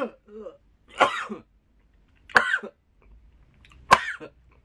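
A man gagging and retching in disgust at the taste of Vegemite: three short, harsh cough-like heaves, about a second and a half apart.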